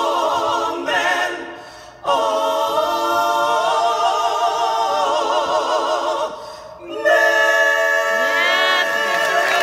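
Four women singing a cappella in close harmony, holding chords with vibrato. The singing breaks off briefly twice between phrases, then settles on a long held chord from about seven seconds in, with a higher voice ornamenting above it.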